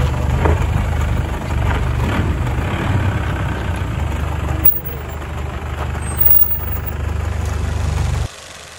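Mitsubishi Montero's DI-D diesel engine idling with a steady low rumble as the 4x4 crawls over ruts at idle in low range. The sound cuts off suddenly near the end.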